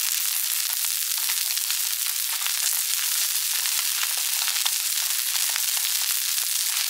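Almaco jack fillets frying skin side down in olive oil and butter on a hot flat-top griddle: a steady sizzle with many small crackles and pops scattered through it.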